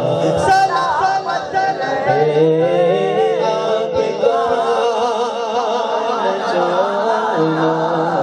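A man singing a devotional Urdu naat-style verse unaccompanied into a microphone in long, wavering melismatic lines, heard through a PA system, with a steady low note held underneath.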